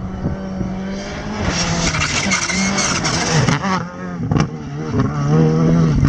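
Skoda Fabia R5 rally car's 1.6-litre turbocharged four-cylinder engine revving hard as it passes on gravel, with a rush of gravel and tyre noise as it goes by about two seconds in. The engine note then rises and drops in steps as it pulls away, with a sharp crack about four seconds in.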